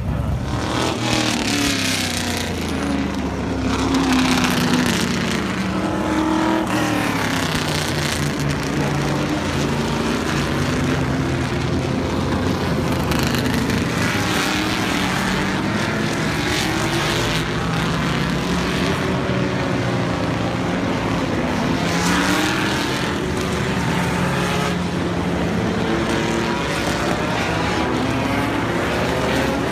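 Historic race car engines running on a track: several cars pass one after another, their engine notes rising and falling in pitch as they accelerate, shift and go by.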